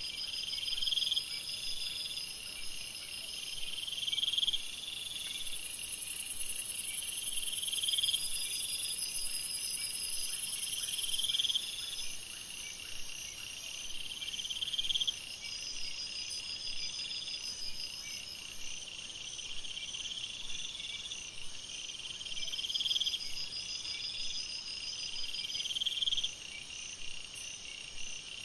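Night chorus of calling insects: a trilling call repeats about every two seconds over other steady high trills, and a loud, very high shrill joins from about five to eleven seconds in.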